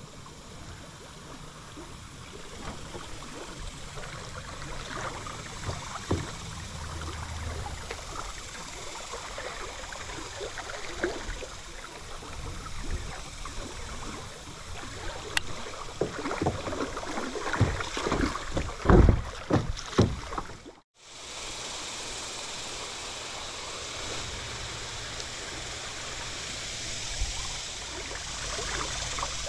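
Shallow river current rushing around a plastic kayak running a riffle, with splashes and thumps that grow louder and come thicker about two-thirds through. After an abrupt break, the steady flow of water over a shallow gravel bar.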